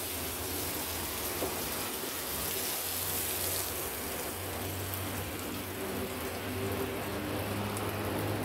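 Steady hissing kitchen noise with a low hum underneath, and one light tap about one and a half seconds in.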